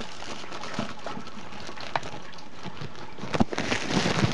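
Plastic packaging bag crinkling and cardboard packaging rustling as it is handled, with a few scattered crackles and then a busier burst of crinkling near the end, over a steady hiss.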